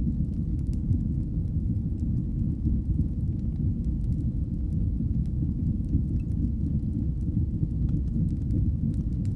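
Wood fire burning in a fireplace: a steady low rumble of flames with faint, scattered crackles.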